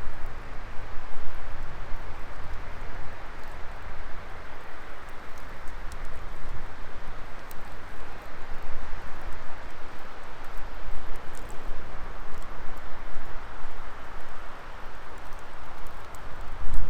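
Wood fire burning in a Coleman Fire Disk fire pit, a steady hiss with scattered faint crackles and a low rumble underneath.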